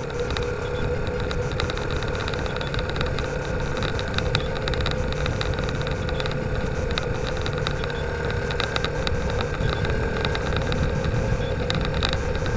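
Motorcycle engine running at a steady cruise, heard through a bike-mounted camera, with low rumbling wind noise and frequent small rattling clicks from the mount.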